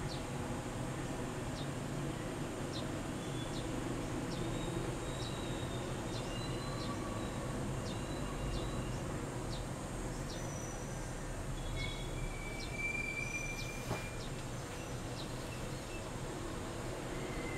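Steady low background hum with scattered faint, short high-pitched chirps throughout.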